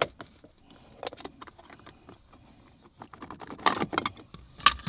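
Small plastic clicks and rubbing as a replacement switch piece is worked into the dash console opening of a Toyota MK3 Supra where the TEMS buttons were, with a busier run of clicking and rattling about three and a half seconds in and a single sharp click near the end.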